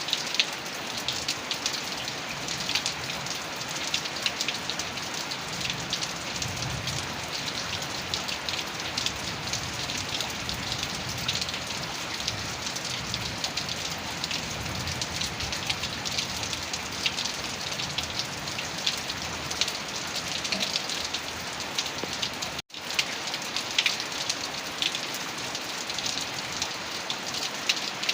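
Heavy rain falling steadily on a surface, with many individual drops spattering. It cuts out for an instant about three quarters of the way through.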